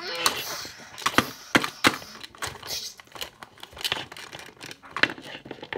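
Hard plastic toy dinosaur figure knocked and tapped against a hard floor: a run of irregular sharp clicks and knocks.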